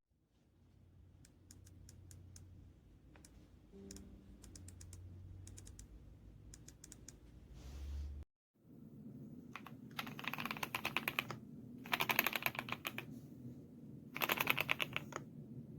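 Typing on an RK Royal Kludge S98 mechanical keyboard. Scattered single key presses come first, then after a brief cut, three fast bursts of typing, each lasting about a second.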